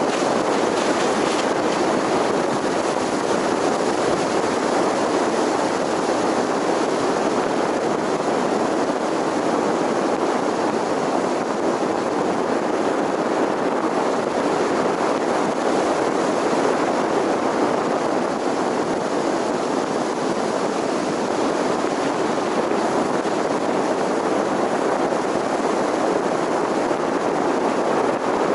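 Steady road and wind noise of a car driving along, an even rushing hiss with no distinct engine note standing out.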